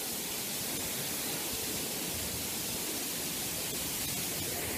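Steady rush of water from a waterfall: an even hiss with no breaks or changes.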